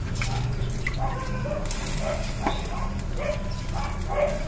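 A pot of soup simmering with a steady low hum, and about eight short, high-pitched yelps like a small dog's whimpers spread through it.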